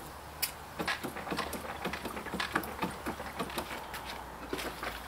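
Fine irregular crackling and popping of 15% sodium hypochlorite fizzing on a lichen-covered stone patio slab as it oxidises the organic matter, several small pops a second.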